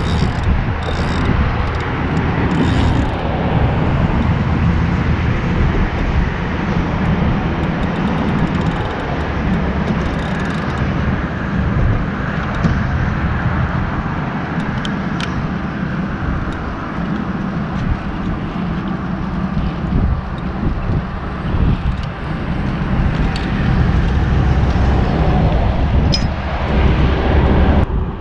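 Steady rumble of road traffic from the neighbouring highway bridge, mixed with wind buffeting the microphone.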